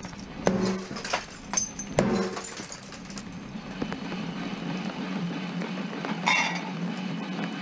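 A bat smashing a laptop on a wooden board: about four strikes in the first two seconds, each with cracking and clinking of breaking plastic and glass. Then a steady low hum, with one short clatter about six seconds in.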